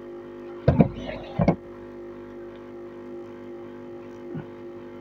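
Hot-air rework station blower running with a steady, even hum. Two short knocks from the board being handled come about a second in, and a faint one near the end.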